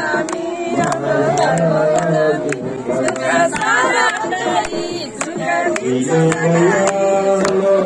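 Devotional song with singing and music, and people clapping their hands in time to it.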